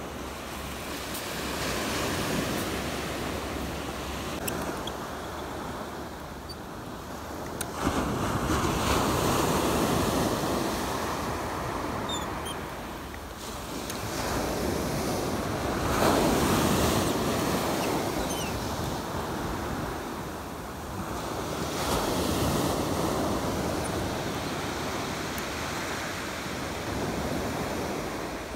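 Sea surf breaking and washing up a gravelly sand beach, swelling and fading about every six or seven seconds as each wave comes in.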